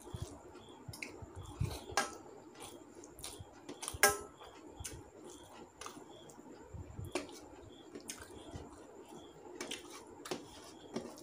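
Fingers mixing rice and curry on a stainless steel plate: soft squishing with scattered small clicks as the hand touches the metal, and one sharper, briefly ringing tap on the plate about four seconds in. Chewing in between.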